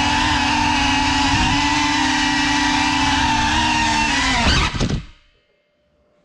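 Small FPV quadcopter's brushless motors and ducted propellers whining steadily, the pitch wavering slightly with throttle. About four and a half seconds in, the whine falls away quickly as the motors spin down, and the sound cuts to silence.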